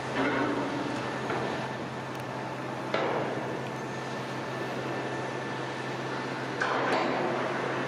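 Shipyard working noise: a steady machinery hum under a wash of general noise, broken by a few sharp bangs, one near the start, one about three seconds in and two close together near the end.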